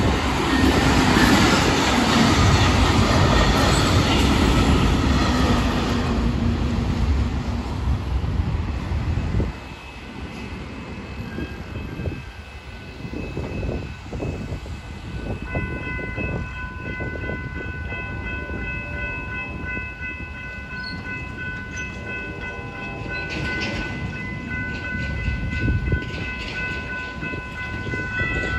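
A Brightline passenger train passes close by, loud at first and dying away about ten seconds in. About halfway through, a grade crossing's warning bells begin ringing steadily.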